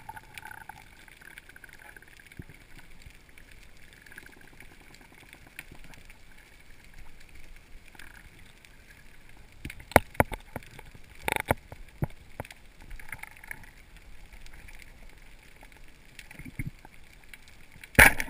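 Underwater ambience picked up by a submerged camera: a steady low hiss with a few sharp knocks around the middle and a loud knock near the end.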